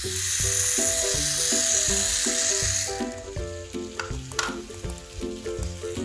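Background music with a melody over a bass line. A steady hiss sits over it for the first half and stops about three seconds in, and there are a couple of sharp clicks about four seconds in.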